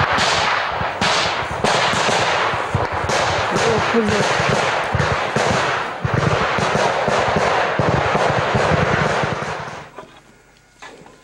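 Sustained automatic weapons fire, a dense, rapid string of shots. It stops near the end.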